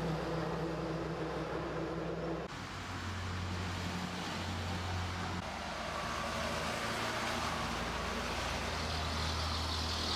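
A low, steady engine hum whose pitch shifts abruptly a couple of times.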